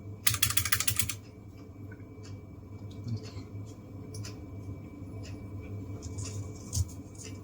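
Keychron K1SE low-profile mechanical keyboard with clicky blue switches clicking: a quick run of about ten clicks in the first second, then occasional single clicks, as keycaps are pressed onto the switches and keys tapped.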